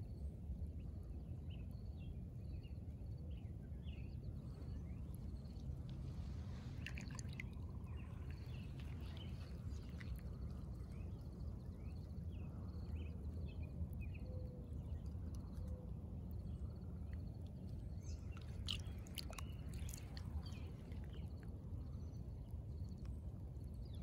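Wet aquatic weeds handled and squeezed in the hand: faint crackling, dripping and squishing, with two busier stretches, about a quarter of the way in and again past three-quarters. Underneath are a steady low rumble and scattered faint high chirps.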